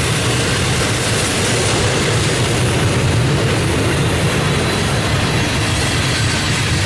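A passing train: a steady rumble and rush of the cars rolling on the rails.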